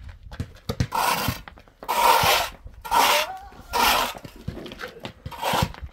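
Hand tool scraping across a gritty cement-and-dirt surface in strokes about a second apart: four long scrapes, then two shorter ones near the end.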